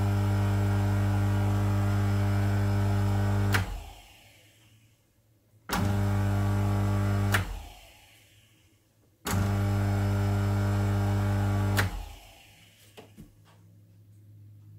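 Small electric motor, just fitted with two new bearings, humming steadily and smoothly. It is switched off about three and a half seconds in, then started and stopped twice more, with a click at each switch and a short run-down after each stop. The run is 'sweet': no bearing noise.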